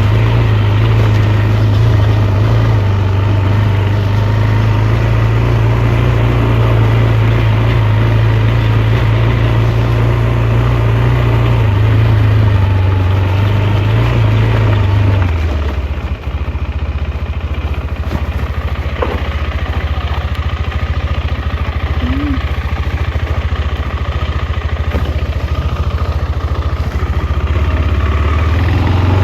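KTM 390 Adventure's single-cylinder engine running at steady low revs. The engine note drops to lower revs about halfway through and picks back up near the end.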